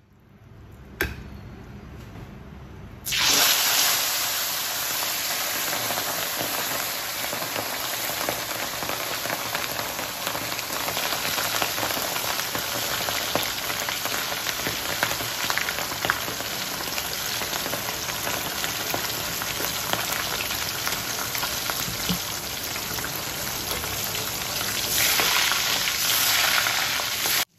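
Whole barracuda deep-frying in a wok of hot oil: a loud, steady sizzle that starts suddenly about three seconds in as the fish goes into the oil, swelling briefly near the end as the fish is moved.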